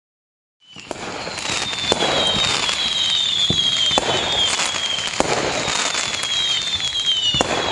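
Fireworks sound effect fading in quickly from silence: dense crackling with scattered sharp bangs and several high whistles that fall slightly in pitch.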